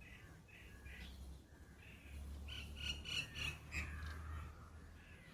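Birds calling outdoors: a series of short, repeated calls, with a louder flurry of calls about halfway through, over a low rumble.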